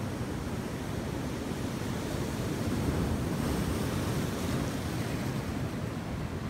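Ocean surf breaking and washing up the beach in a steady noise that swells a little about three seconds in, with some wind on the microphone.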